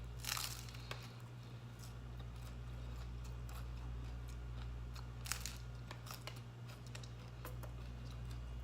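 Someone eating tacos: scattered crunches and small mouth clicks over a steady low hum.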